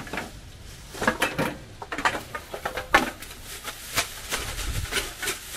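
Empty drink bottles and cans clinking and knocking against each other as they are gathered by hand into a plastic bag: a quick, irregular run of clinks, several ringing briefly.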